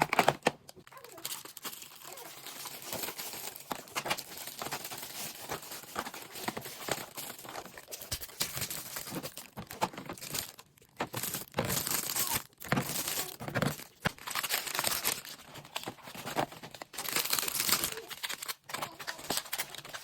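Plastic grocery bags and food packaging crinkling and rustling on and off as groceries are handled and unpacked, with a few short clicks and knocks.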